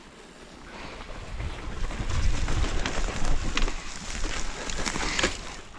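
Mountain bike riding down a dirt trail: tyre rumble over the ground with knocks and rattles from the bike, building up about a second in.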